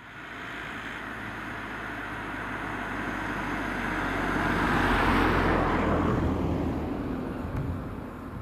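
A vehicle passing close by: a rushing sound that swells to a peak about five seconds in, then fades with a falling pitch.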